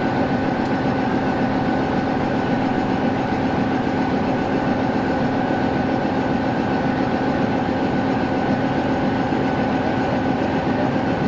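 Diesel train idling while standing still: a steady engine hum with a constant drone of several fixed tones and no wheel clatter.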